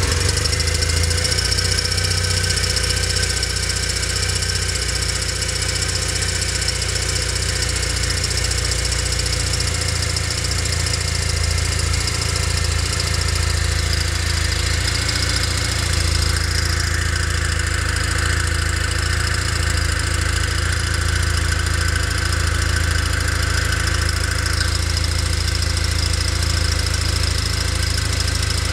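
Kawasaki W800's 773cc air-cooled vertical-twin engine idling steadily through its stock exhaust.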